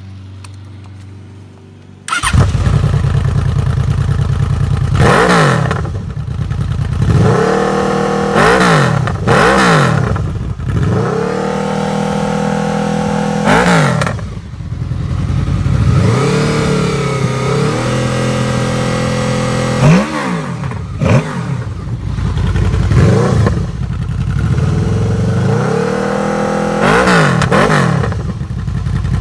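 Honda VFR800 Interceptor's V4 engine starting about two seconds in, then blipped through a series of revs, some held for a second or two, between idles. It runs through a Coffman shorty slip-on exhaust with its baffle removed, which makes it louder, throatier and deeper, with more burble.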